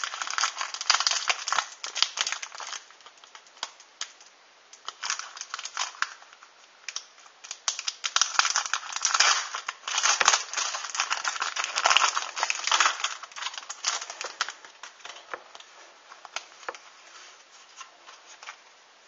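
Foil Pokémon booster pack wrapper being crinkled and torn open by hand, in repeated crackling bursts that thin out to scattered clicks and rustles over the last few seconds.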